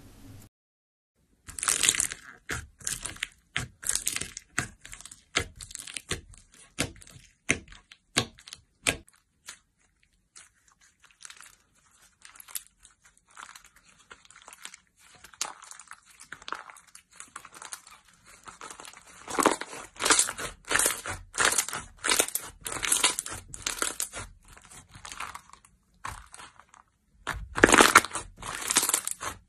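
Slime being stretched, pressed and kneaded by hand, giving a dense run of sharp crackling pops and clicks, loudest near the end.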